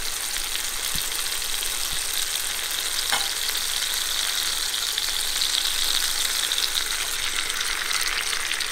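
Canned tuna sizzling in hot oil in a frying pan with onion-tomato masala: a steady crackling sizzle that grows a little louder around the middle. A few faint knocks in the first few seconds.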